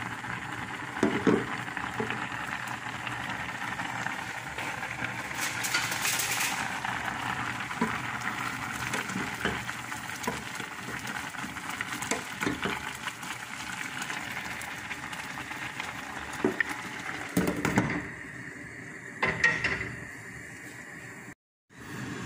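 Butter rice boiling in a stainless steel pot, a steady bubbling hiss as the water cooks down and the rice starts to stick. A wooden spoon stirs it, knocking against the pot a few times. The bubbling drops away near the end.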